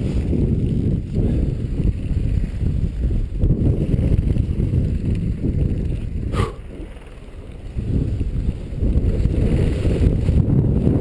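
Wind rumbling on a head-mounted camera's microphone as a skier moves over snow. A short sharp click comes about six seconds in, and the rumble drops away for about a second before picking up again.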